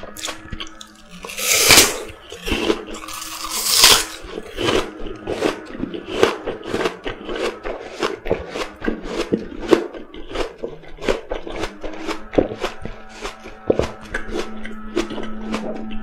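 A person biting into a raw apple close to the microphone: two loud crunches within the first four seconds, then steady moist chewing at about two to three chews a second.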